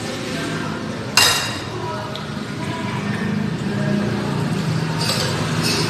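Steady background of road traffic and voices. A sudden sharp noise comes about a second in, and two short hissy noises come near the end.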